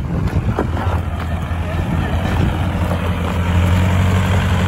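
Mitsubishi Montero's engine running steadily at low revs as the 4x4 crawls over deep ruts, getting louder as it comes closer.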